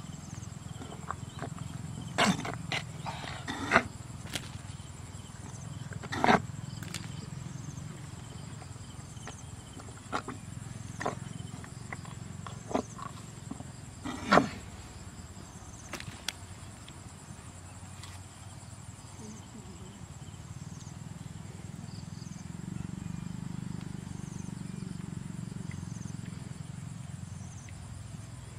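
Bare hands digging and tearing at wet mud and clods, giving a scattering of short sharp slaps and cracks, the loudest about 2, 4, 6 and 14 seconds in, over a steady low rumble.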